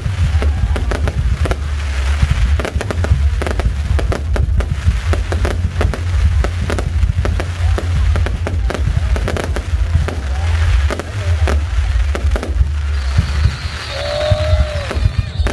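Aerial fireworks going off in rapid succession: a dense run of sharp bangs and crackles over a continuous low rumble. About thirteen seconds in, a steady high tone joins them.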